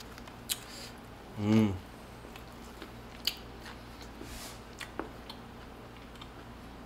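A person chewing a mouthful of a Vietnamese-style pork rib sandwich, with soft clicks from the mouth and a short closed-mouth hum about a second and a half in.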